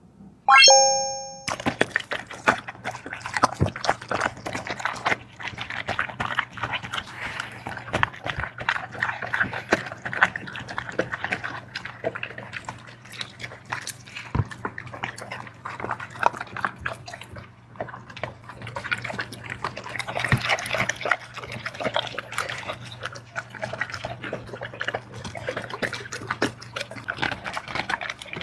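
Dog eating wet food: fast, irregular wet chewing, smacking and lapping clicks throughout. About half a second in, a short ringing tone lasts about a second and is the loudest sound.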